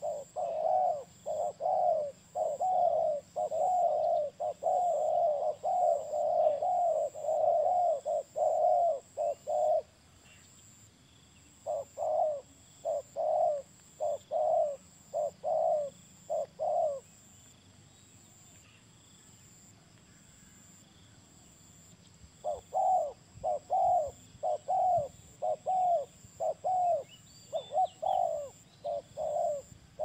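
Spotted doves cooing: long runs of short, repeated coos, about two a second. The cooing breaks off briefly about ten seconds in, stops for about five seconds past the middle, then starts again.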